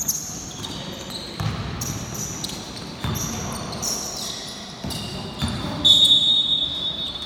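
Basketball game on an indoor court: sneakers squeaking in short high chirps and the ball bouncing with dull thumps. A steady high squeal lasts about a second from around six seconds in, louder than the rest.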